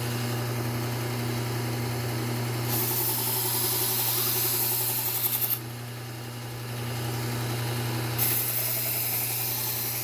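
Bucktool low-speed belt sander's motor running with a steady hum, while a kitchen knife blade is drawn across a 3M Trizact A30 belt in two passes, each a few seconds of hissing grind, the first about three seconds in and the second starting about eight seconds in. The fine belt is refining the edge and taking off the burr.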